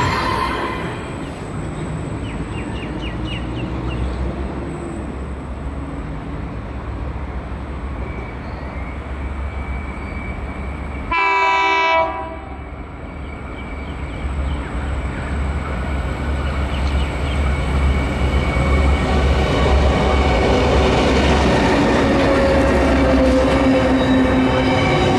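Diesel freight locomotives (a 49 class leading BRM002) approaching with a container train: one horn blast about a second long near the middle, then the engines' low rumble building as the locomotives and their container wagons pass.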